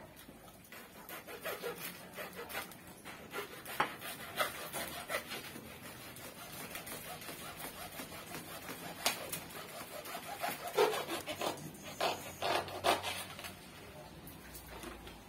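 Hand saw sawing down through soil and roots around the inside of a plant pot, in uneven scraping back-and-forth strokes with sharp clicks, to loosen a desert rose's root ball from the pot.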